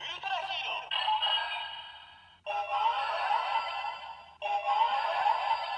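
Ultraman R/B Gyro toy's small speaker playing electronic voice-and-music sound effects in several bursts with short pauses between them, after a crystal is read; it is the generic Ultra Hero sound, which gives nothing special for this crystal.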